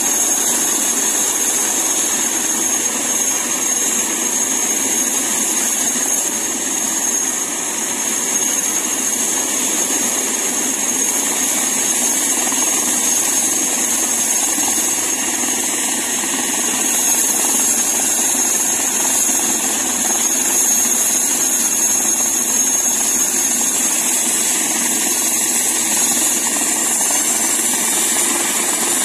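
Airbus H145 helicopter running on the ground before take-off, its twin Safran Arriel turboshaft engines giving a steady high whine over the rotor noise.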